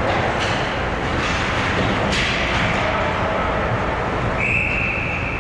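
Ice hockey game in an arena: a steady din of rink noise with scrapes and clacks of skates and sticks, then a single high referee's whistle starting near the end and held for about two seconds.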